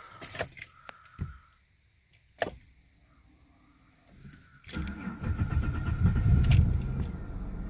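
A few clicks and a sharp knock, then a Holden VS Commodore's Ecotec V6 cranks and fires about four and a half seconds in. It settles into a steady, slightly rough cold idle.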